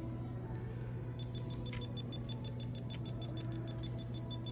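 Handheld electronic diamond tester beeping rapidly, about six short high beeps a second, starting about a second in as its tip is held against the stones of an iced-out watch. A steady beeping like this is how the tester signals a diamond reading.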